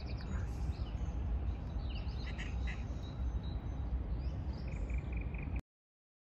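Frogs and birds calling, with a quick series of calls near the end, over a steady low rumble. The sound cuts off suddenly shortly before the end.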